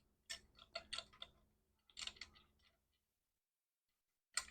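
Faint, scattered clicks of small metal parts being handled, a banjo bolt and its steel washers, about eight light ticks in the first half and one more near the end.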